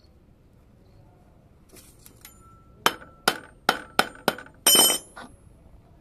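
Metal knocking on metal: five sharp knocks about every third to half a second, each with a short ring, then a longer ringing clatter of metal.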